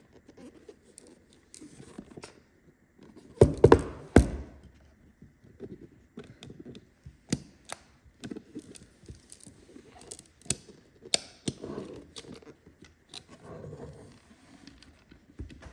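Cigar box and its packaging being handled and opened: scattered clicks, knocks and rustling, with a louder clatter of knocks about three and a half seconds in.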